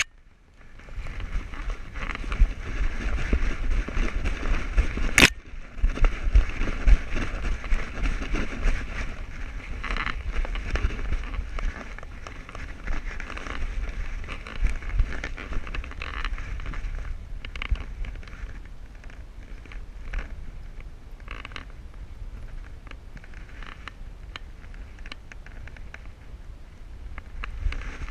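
Jostling and rubbing noise from a camera strapped to a moving dog's back: a constant low rumble with scattered clicks and crackles, and one sharp knock about five seconds in. It grows quieter in the second half.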